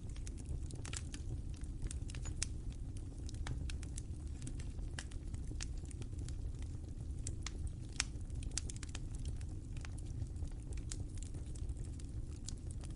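Fire crackling: irregular sharp pops and snaps over a steady low rumble, with one louder pop about eight seconds in.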